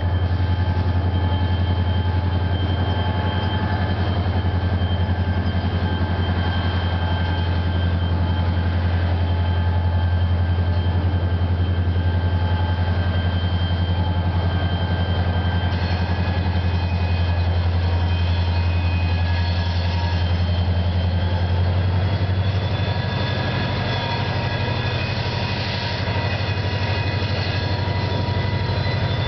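Diesel locomotives of an approaching CSX freight train, led by an EMD SD40-2, running with a loud steady low drone and faint steady high whines over it. The drone shifts slightly a little after two-thirds of the way through as the lead unit draws close.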